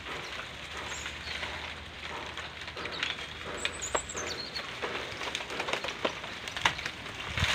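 Dry, brittle banana leaves rustling and crackling with scattered sharp snaps as they are handled. A bird chirps briefly partway through.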